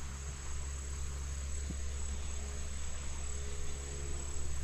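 Steady lakeside background: a constant high-pitched insect drone over a low, even rumble.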